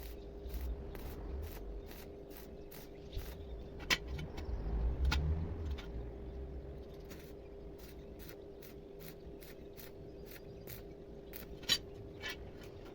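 Regular mechanical clicking, about two clicks a second, over a steady hum. There is a louder knock about four seconds in and another near the end.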